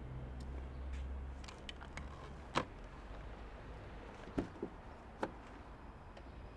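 Quiet street ambience: a low vehicle rumble fades away over the first two seconds, then a few sharp knocks or clicks stand out, the loudest about two and a half seconds in.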